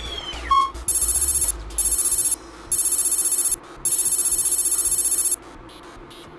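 Electronic sound effects for an on-screen graphic: a short beep, then four bursts of a high, buzzing electronic trill, the last one the longest, over a faint steady hum.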